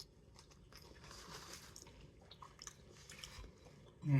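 A person chewing and biting into pizza, with small crunches and wet mouth clicks. Just before the end comes a short, louder voice sound.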